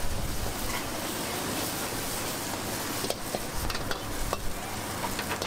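Egg and seafood sizzling in hot oil in a wok while a metal ladle stirs them, scraping across the pan. The ladle knocks against the wok with several sharp clicks in the second half.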